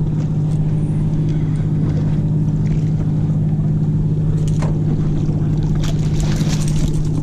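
Boat engine running steadily, a low even hum. Near the end there are a few sharp splashes and a short hiss of water as a fluke thrashes at the surface and is scooped into a landing net.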